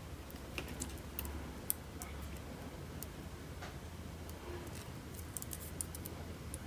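Faint, scattered small clicks and taps of hands handling a glue bottle and tiny craft spiders on a wooden tabletop, over a low steady hum.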